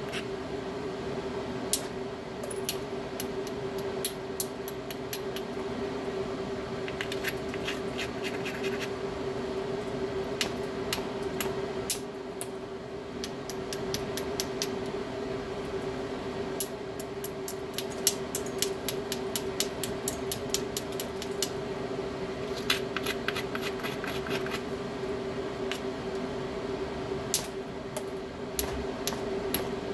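Hammerstone striking a stone being knapped into a biface: sharp clicks and knocks in short clusters a few seconds apart, some in quick runs of light taps. A steady low hum runs underneath.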